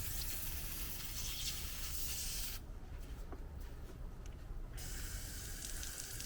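Water spray hissing from a Makita electric pressure washer's wand. The spray cuts off about two and a half seconds in and starts again about two seconds later.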